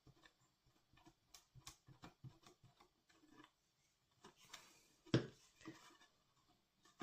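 Faint rustling and small taps of a cardstock paper model being handled and pressed together while the glue sets, with one louder knock about five seconds in.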